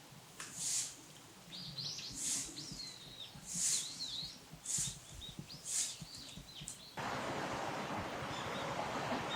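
Small birds calling: short, very high, sharp calls about once a second, with a wavering twitter between them. About seven seconds in, it cuts abruptly to a steady rush like flowing water.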